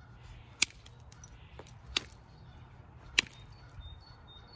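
Hand-held billet striking the edge of a creek flint blank: three sharp, loud clicks about a second and a quarter apart, with lighter ticks between. This is percussion flaking, zigzagging along the edge to shape and thin a stone knife blade.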